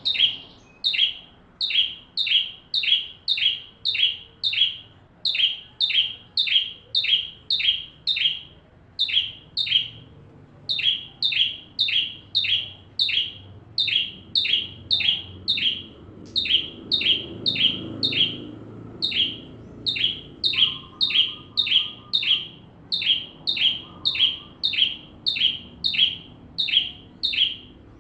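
Ciblek (prinia) songbird calling insistently: a fast, even run of short high chirps, about two a second, each sliding down in pitch, broken only by a few brief pauses.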